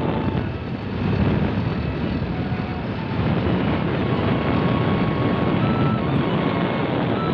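Old tractor's engine running steadily as the tractor drives along a road.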